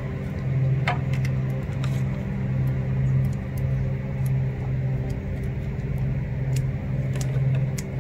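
A motor vehicle engine idling with a steady low hum. Scattered light clicks come from gloved hands handling a lump of epoxy putty.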